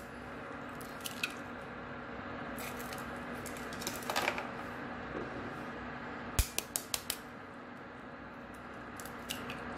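Raw eggs cracked one after another against the rim of a bowl: short runs of sharp clicks as shell strikes the rim, about four seconds in and again in a quick run about six and a half seconds in, as each shell is broken open over the bowl.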